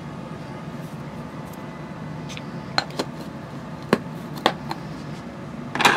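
A few light, sharp clicks and taps of a kitchen utensil against a bowl or container while salt is measured out for the meatloaf mix, over a steady background hiss, with a louder brief rustle at the very end.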